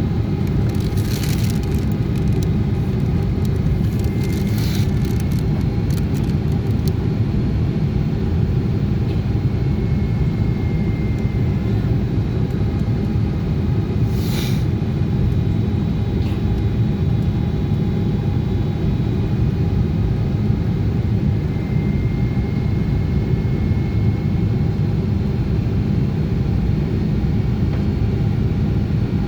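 Steady cabin roar inside a Boeing 777-200ER airliner in flight on its descent: jet engine and airflow noise, deep and even. A few brief faint rustles or clicks sound over it, about a second in, near five seconds and near fourteen seconds.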